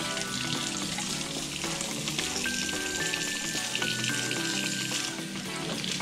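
Tap water running from a kitchen faucet onto hands being rubbed together in a stainless steel sink: a steady hiss. Background music plays with it.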